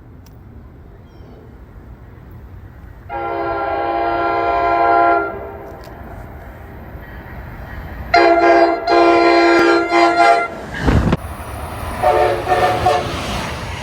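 Train horn sounding a chord over the noise of the train: one blast of about two seconds, then a series of blasts with short breaks, and a fainter blast near the end. A dull thump comes partway through the series.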